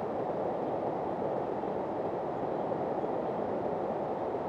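Steady rush of river water running over rocks.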